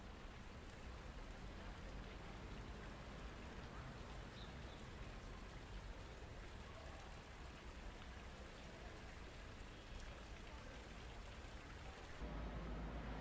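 Steady, quiet splashing of water from a stone plaza fountain, an even hiss with no distinct drops or voices. About a second before the end a louder low rumble of street noise comes in.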